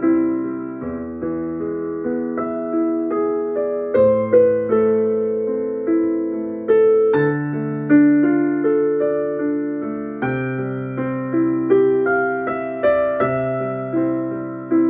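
Background music: a gentle electric piano melody, with notes struck at an even pace and left to ring.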